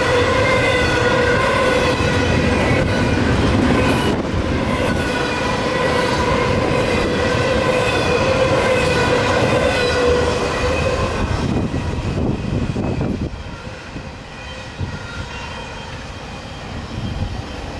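Intermodal freight train's container and trailer cars rolling past over a level crossing, with a steady ringing tone above the rumble. The rolling noise fades after about ten seconds as the end of the train goes by, and is much quieter from about thirteen seconds.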